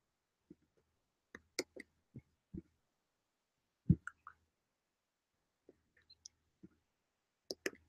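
Faint, irregular computer mouse and keyboard clicks with light knocks, about a dozen in all, spaced unevenly, with one louder low thump about four seconds in.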